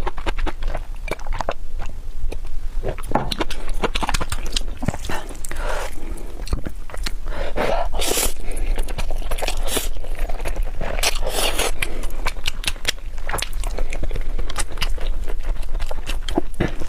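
Close-miked eating of shellfish: chewing and biting with many sharp clicks, and a few short breathy rushes of noise about eight and eleven seconds in.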